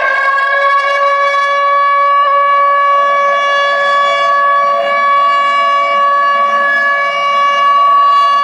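Air-raid alert siren from an outdoor public-warning loudspeaker system, loud and holding one steady pitch: the signal that warns of an air raid.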